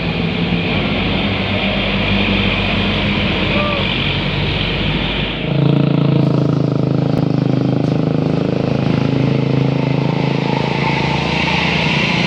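Roadside traffic: a heavy vehicle's engine running close by, with a steadier, louder low engine note from about five and a half seconds in.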